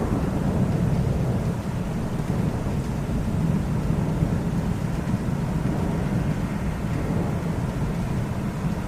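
Rolling thunder: a continuous low rumble without sharp cracks, holding steady.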